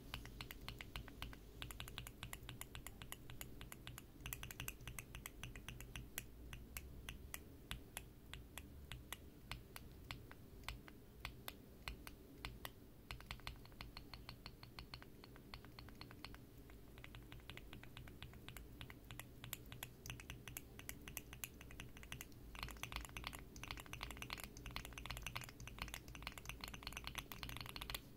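MMD NP linear mechanical keyboard switch (polycarbonate top and bottom housing, LY stem) under a keycap, pressed and released rapidly over and over: a continuous run of sharp clacks, several a second, busier near the end.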